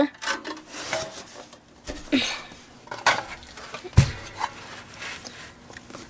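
Two small portable space heaters being handled and turned around by hand on a rug: scattered rubbing and scraping against their cabinets, with one sharp knock about four seconds in as a heater is set down or bumped.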